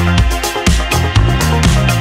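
Upbeat electronic dance-style background music with a steady beat of about two beats a second and a bass line.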